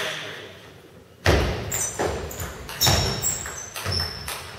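Table tennis rally: the ball clicking off bats and table about twice a second, beginning with a sharp hit about a second in, each knock echoing in the hall.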